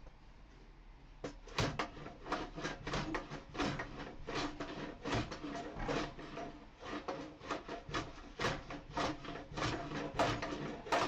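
Hand plane scraping across a reclaimed pallet-wood workbench top in quick, short strokes, about three a second, starting about a second and a half in. The blade needs sharpening: it is not taking off enough on the stubborn side.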